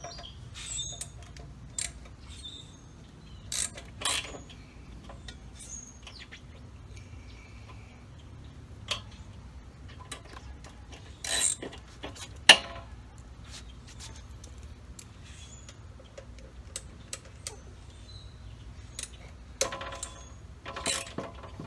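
Scattered clicks and clinks of a hand tool working the screws that hold a motorcycle's front fender, with a sharp metallic clank about twelve seconds in as the loudest sound. Birds chirp faintly in the first few seconds.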